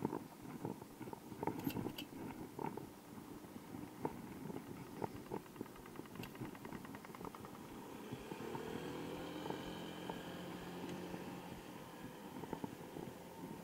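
Street sound from a bicycle ride: the bike rattles and knocks irregularly over the pavement, with a brief run of fast, even ticking midway. In the second half a motor vehicle passes with a steady engine hum lasting a few seconds.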